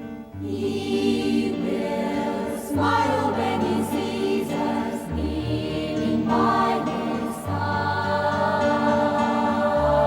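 Choir singing a sacred Christmas hymn with instrumental accompaniment, in sustained chords over held bass notes. The choir comes in about half a second in, after a quieter instrumental passage.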